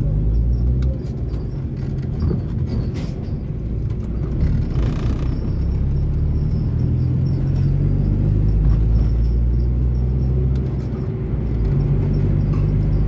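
Ford Verona's AP four-cylinder engine heard from inside the cabin, pulling away and accelerating in traffic. Its low drone steps to a new pitch a couple of times as it goes through the gears.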